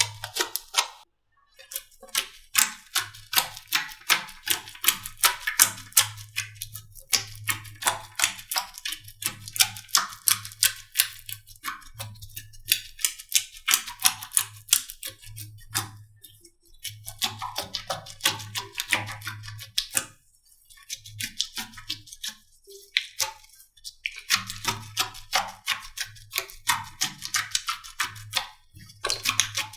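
Slime being squeezed and pressed, giving dense runs of sharp clicks and pops that come in stretches of a few seconds with short pauses between.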